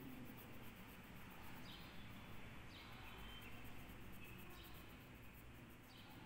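Near silence: faint room tone, with a few faint, short, high chirps that fall in pitch, about a second or more apart.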